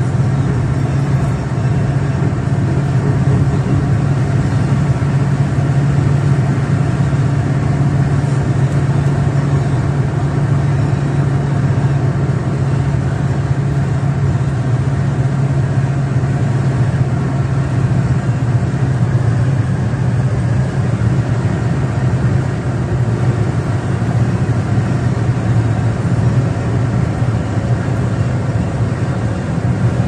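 Car cruising at highway speed, heard from inside the cabin: a steady low engine drone mixed with tyre and road noise.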